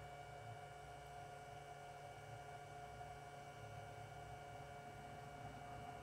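Propane radiant heater burning on a cold start: a faint, steady hum with a few held tones.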